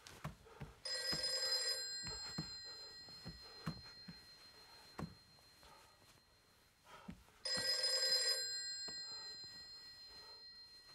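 A bell ringing twice, about six and a half seconds apart, each ring lasting about a second and then fading away slowly. Soft knocks and clicks come between the rings.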